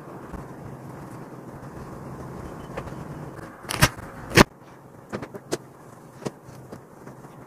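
Paper and stationery being handled while a journal page is decorated: a steady soft rustle, then two sharp clicks about half a second apart, followed by a few lighter taps.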